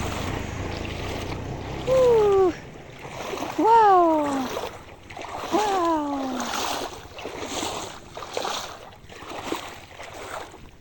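Feet wading through shallow floodwater, a swish and splash about once a second. Three short cries fall in pitch in the first half and are the loudest sounds.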